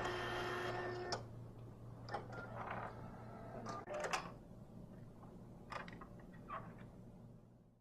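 Datacard desktop ID card printer running a sample print: a steady motor whine for about the first second, then scattered short whirs and clicks as the card is fed and moved through.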